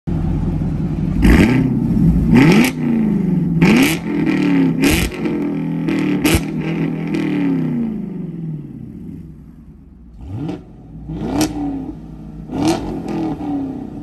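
2022 Chevrolet Camaro LT1's 6.2-litre V8 exhaust, free-revved in quick throttle blips while parked. Each rev snaps up sharply and falls back toward idle. Five blips come about a second and a half apart, the engine settles near idle for a couple of seconds about two-thirds through, then the blips start again.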